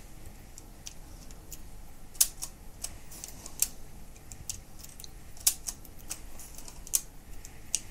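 Rolleiflex 3.5 twin-lens reflex camera's film-advance crank being worked as the roll is run through frame by frame: light ticks of the mechanism with four sharp, louder clicks about a second and a half apart.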